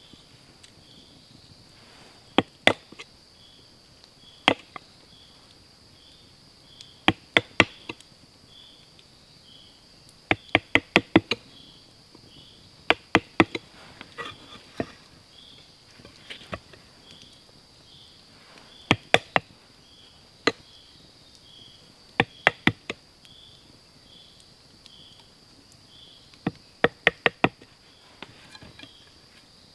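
A small hammer tapping a wood chisel into a stick, with sharp knocks in quick bursts of one to five and pauses of a few seconds between them. An insect sings steadily in the background, with soft chirps a little more than once a second.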